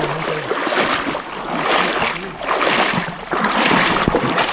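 River water rushing, a steady noise that swells and eases every second or so.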